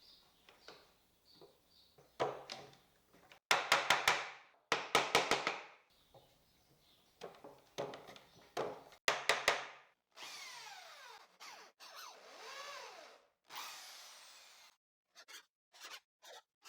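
Power drill boring 3 mm pilot holes into cedar in several short bursts of a second or less. Later runs are quieter, with the motor pitch sliding up and down as the trigger is eased.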